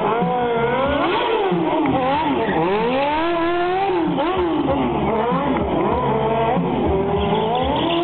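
Motorcycle engine revving up and down over and over as the rider circles on the throttle. Near the end the pitch rises and holds steady.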